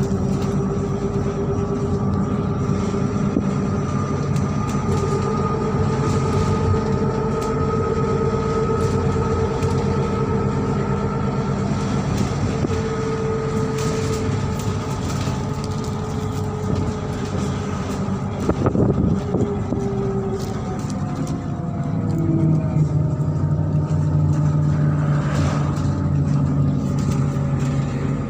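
MAZ-103 city bus under way: its diesel engine and drivetrain run steadily, the pitch drifting slowly up and down with speed. A few knocks and rattles come about two-thirds of the way through, and the low engine note grows stronger near the end.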